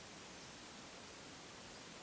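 Faint, steady forest ambience: an even hiss with no distinct bird call or other event.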